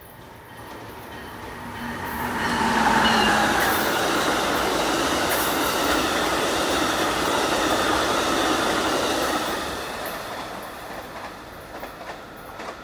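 Amtrak passenger train of Amfleet cars running through the station without stopping. The rumble of wheels on rail builds over about two and a half seconds, holds steady and loud, then fades about ten seconds in, with a few clacks of wheels over the rails near the end.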